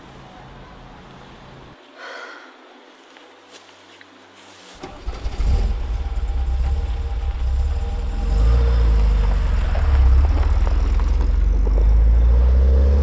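A loud low rumble sets in about five seconds in and grows stronger from about eight seconds, with faint gliding tones above it, then drops away at the very end.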